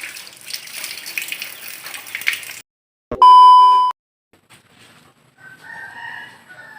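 Water running and splashing, cut off suddenly after a couple of seconds. After a moment of dead silence comes a loud, steady electronic beep lasting just under a second, an edited-in sound effect.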